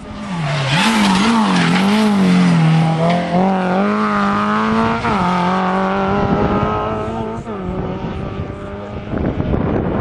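Rally car at speed on a special stage: its engine revs rise and fall through gear changes, with heavy tyre and road noise. About five seconds in the engine note drops, and it then runs on more steadily and fades away.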